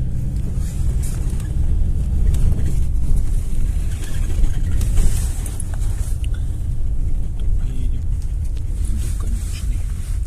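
GAZelle Next (GAZ-A65R52) minibus under way, heard from inside: a steady low engine and road rumble, with scattered short rattles and clicks.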